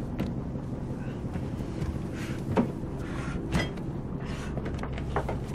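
Boat engine running with a steady low drone, with two sharp knocks about two and a half and three and a half seconds in.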